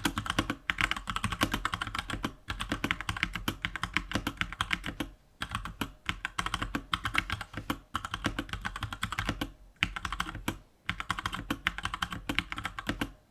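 Fast typing on a Keychron K2 mechanical keyboard with Gateron Brown tactile switches: a dense run of key clacks with a few brief pauses.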